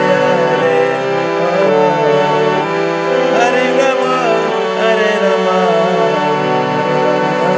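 Harmonium played by hand: sustained reed chords with a kirtan melody moving on top, the notes changing about once a second.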